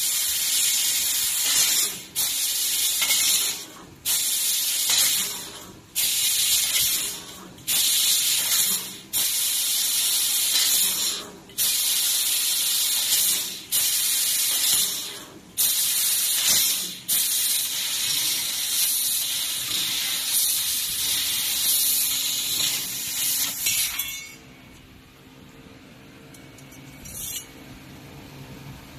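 Fiber laser tube cutting machine cutting galvanized square pipe: a loud hiss from the cutting head's gas jet, breaking off briefly about every two seconds as one cut ends and the next begins. About three-quarters of the way through, the hiss stops. A quieter steady hum is left, with one short hiss near the end.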